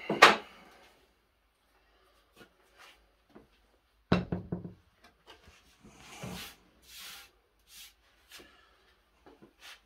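Cordless power tools being handled on MDF boards: a sharp knock just after the start, a quick cluster of knocks about four seconds in as a drill is set down on the board, then scattered clicks and short rustles.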